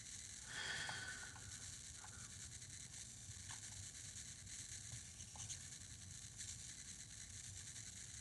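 Faint steady room hiss with a few soft, scattered clicks and a brief rustle just under a second in.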